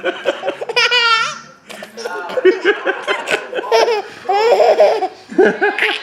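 Baby laughing in repeated bursts while being tickled, with a high, wavering squeal about a second in.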